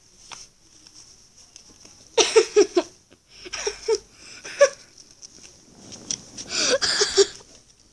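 A child laughing in three short bursts, a few quick syllables at a time.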